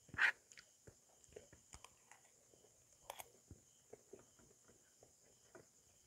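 Quiet close-miked eating: soft chewing and mouth clicks over rice and sautéed eggplant, with a louder scrape of the spoon and rice on the plate just after the start and another short sharp clink about three seconds in.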